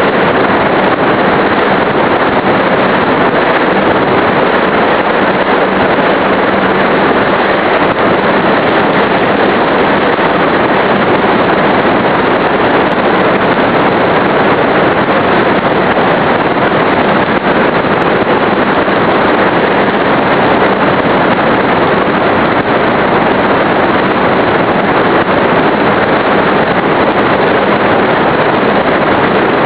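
Airflow and electric-motor and propeller noise picked up by a camera riding on an RC model Cessna 182 in flight: a loud, steady rushing with a faint steady hum underneath.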